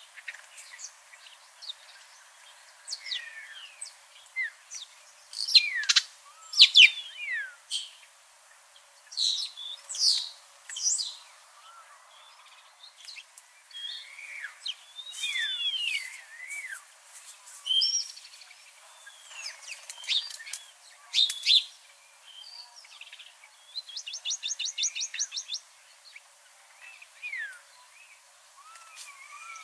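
Several birds singing and calling: a mix of short chirps and whistled slurs of varying pitch, with a fast, even trill near the end.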